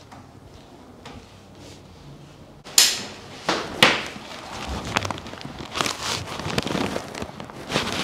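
A chiropractic adjustment: a sudden, loud crack about three seconds in, followed quickly by two smaller cracks. After that come irregular knocks and rustling as the patient moves on the padded table.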